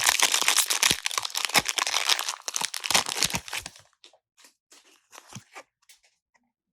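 Foil wrapper of a Pokémon trading-card booster pack being torn open and crinkled: dense crackling for about three and a half seconds, then only a few faint taps and rustles as the cards are handled.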